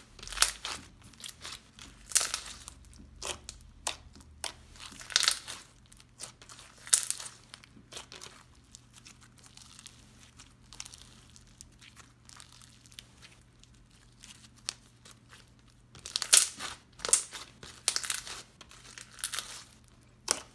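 Glossy, crunchy floam slime full of foam beads being kneaded, poked and stretched by hand: a run of sharp crackles and pops, sparse for several seconds in the middle and busiest near the end.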